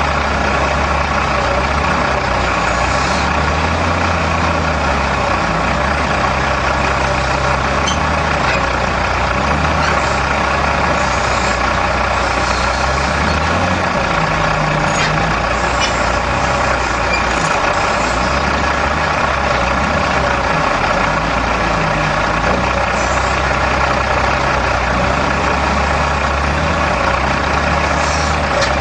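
Heavy machine engine running continuously, its low note shifting up and down now and then as the machine works, with a constant dense whine and hiss above it.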